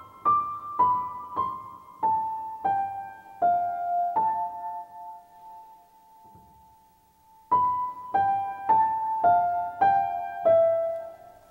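Background music: a slow piano melody of single struck notes, about two a second, stepping downward in pitch. A held note fades away for a few seconds in the middle before the melody starts again.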